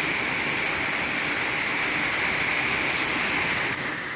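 Heavy rain pouring down, a steady even hiss of falling water that eases slightly near the end.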